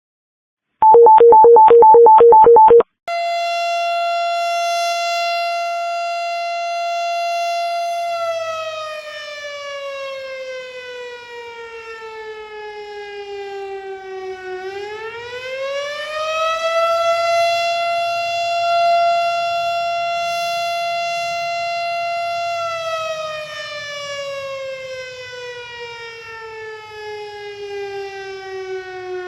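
A brief loud burst of rapidly pulsing two-tone beeps, then a fire station's house siren sounding: it holds a steady high wail, winds slowly down in pitch, winds back up and holds again, then starts winding down once more near the end.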